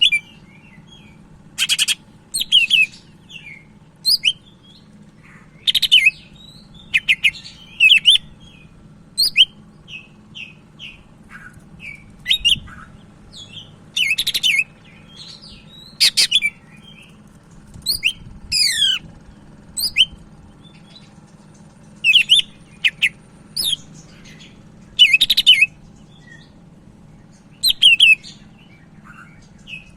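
Cucak ijo (green leafbird) singing actively in short, loud phrases of sharp whistles and quick downward-sweeping trills, a new phrase every second or two, over a faint steady low hum.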